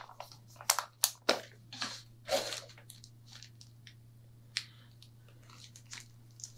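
Cigar packaging being handled: a quick run of short crinkles and crackles for the first two and a half seconds or so, then only an odd one.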